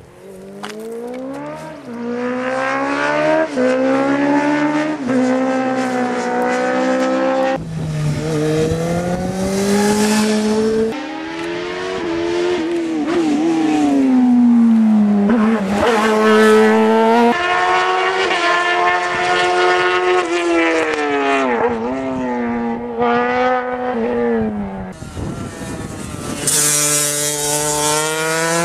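Racing engines revved hard up through the gears on a hill climb: each run climbs steeply in pitch, drops back at a gearchange and climbs again. Near the end a high-revving motorcycle engine comes up loudly.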